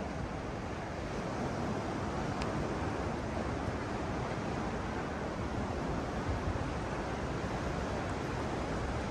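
Steady outdoor wind noise, a continuous even rush, with one faint click about two and a half seconds in.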